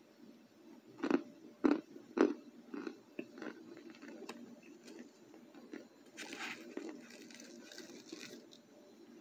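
Crunching bites into dry chunks of homemade cornstarch brick: three sharp crunches in quick succession about a second in, then softer chewing crunches, with a short rustle about six seconds in.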